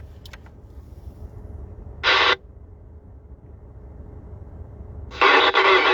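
Handheld PMR446 radio speaker giving two sudden bursts of static hiss, a short one about two seconds in and a longer one near the end, each cutting in and out sharply as the squelch opens on an unreadable transmission. The contact's signal is off frequency. A low steady rumble runs underneath.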